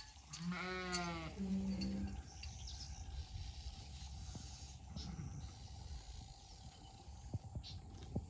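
A ewe gives a low, wavering bleat in two parts about half a second in, with a fainter short call around five seconds, as she tends her newborn lamb.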